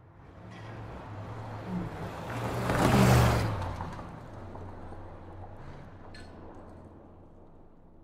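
Muscle car speeding past on a highway: engine and tyre noise build up, peak about three seconds in, then fade slowly as the car moves away.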